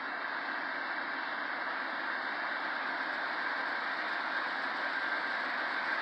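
Distant approaching freight train with GE diesel locomotives in the lead, heard as a steady rushing noise that slowly grows louder.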